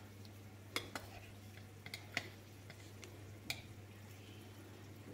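A spoon clicking against a tin of ground sweet paprika as it is dipped in and scooped out, a handful of light, irregular clicks over the first few seconds. A low steady hum runs underneath.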